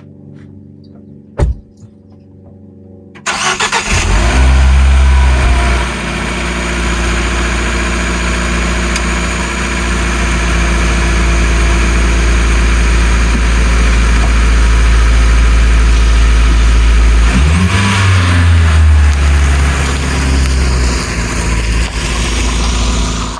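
A single loud thump, then a Jeep Renegade's engine cranks and catches about three seconds in, runs at a high fast idle for a couple of seconds and settles to a steady idle, as on a cold start after sitting overnight. About seventeen seconds in the engine revs up, holds a few seconds and drops back.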